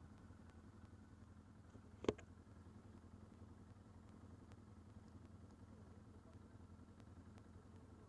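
ATV engine idling, a faint low rumble, with one sharp knock about two seconds in.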